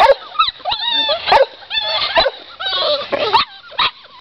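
A litter of pit bull–boxer mix puppies yipping and whining over one another, high rising and falling calls with a few sharp barks mixed in.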